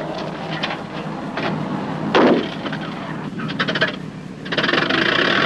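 Light propeller aircraft's engine running, with scattered clicks and knocks, swelling to a loud rushing noise about four and a half seconds in as it powers up.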